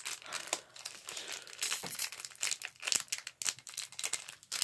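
Foil Pokémon booster pack wrapper crinkling in the hands as it is worked and torn open: an irregular run of sharp crackles.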